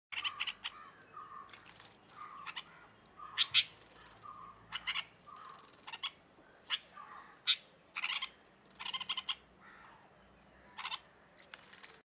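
Small birds chirping: short calls that repeat every half second to a second, some sharp and high, others a lower short note.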